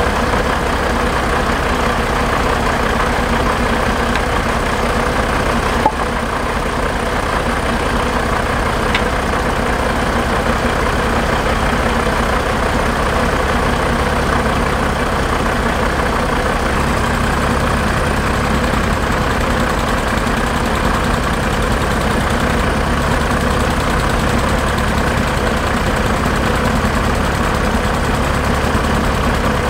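Heavy diesel truck engine idling steadily, with one short click about six seconds in.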